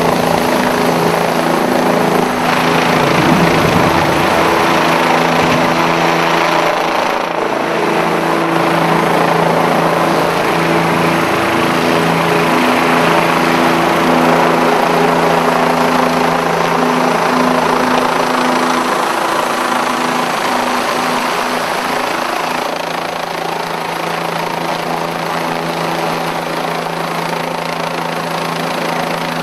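Helicopter flying overhead, its rotor and engine running steadily and loudly.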